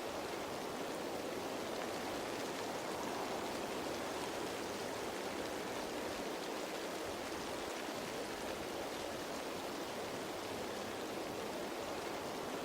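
Steady rain falling on leaves, an even hiss of many small drops with no change in intensity.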